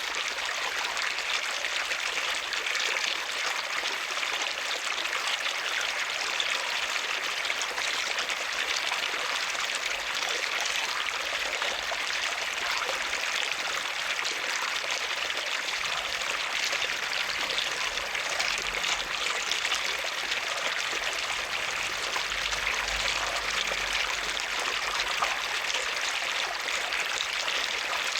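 Running water flowing steadily with an even rushing sound.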